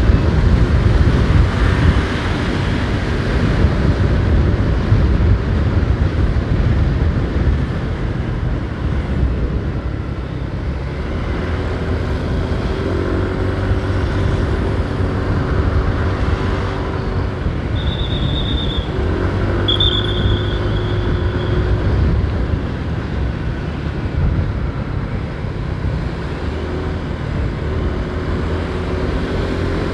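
Motorcycle ride through road traffic: a steady low engine and wind rumble, with other vehicles' engines passing. Two short high-pitched tones sound a little past halfway.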